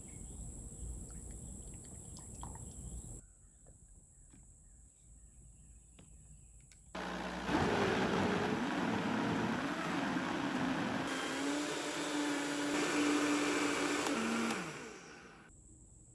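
Crickets chirping, then after a pause an electric blender switches on and runs loudly for about seven seconds, its motor hum settling to a lower steady pitch partway through before it winds down and stops.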